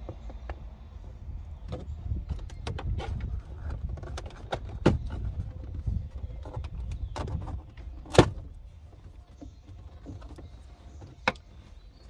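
Plastic lower dash trim panel of a Jeep Wrangler JK being pulled loose by hand: a string of plastic clicks and knocks as its retaining clips let go, with the sharpest snap about eight seconds in, over a low rumble.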